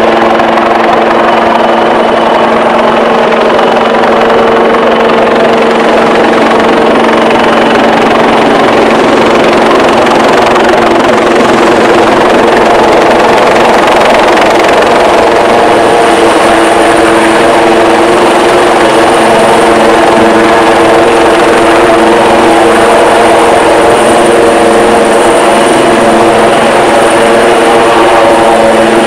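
AgustaWestland AW159 Wildcat HMA Mk2 helicopter hovering close by, its twin turboshaft engines and rotors running loud and steady, with a high turbine whine that grows stronger about halfway through.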